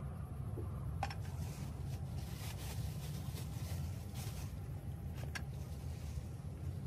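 Steady low rumble of wind on the microphone, with two small sharp clicks and a brief stretch of soft rustling as the angler handles his gear.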